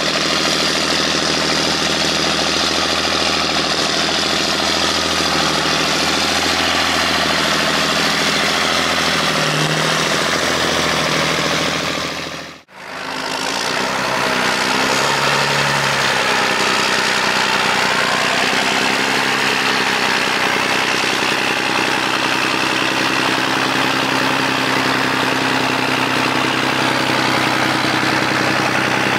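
John Deere 8100 tractor's six-cylinder diesel engine running steadily while pushing grass silage. It fades out briefly about halfway through, then comes back and runs on steadily.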